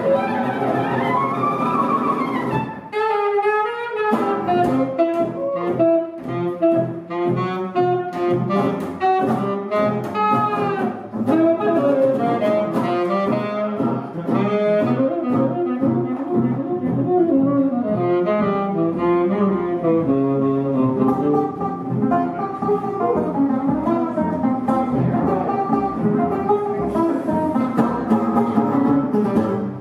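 Small jazz band playing live: a saxophone carries a wavering melody over acoustic guitar and plucked upright bass.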